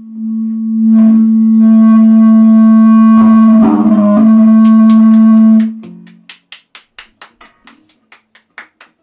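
Amplified electric guitar holding one loud sustained note that rings on steadily with a brief waver midway, then cuts off about six seconds in. A single pair of hands then claps, about five claps a second.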